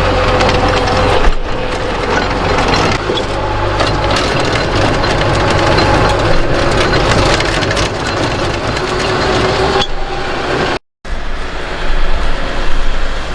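Tractor engine running steadily while driving a TMR feed mixer wagon, with a continuous mechanical clatter over the engine.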